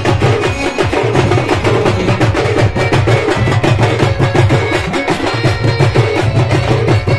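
Soura wedding dance music from a band: a dense, steady drumbeat with held low tones beneath.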